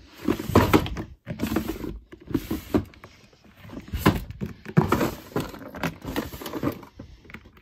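Clear plastic storage drawers being pulled open and pushed shut, with plastic fidget toys rattling and shifting inside; a run of irregular scrapes and knocks.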